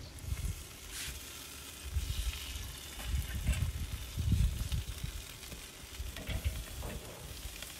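Sauce-basted chicken quarters sizzling on a charcoal Weber kettle grill as barbecue sauce is brushed on, a steady hiss with irregular low rumbles underneath.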